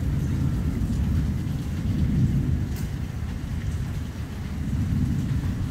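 Thunder rolling in a long, low rumble that swells about two seconds in and again near the end.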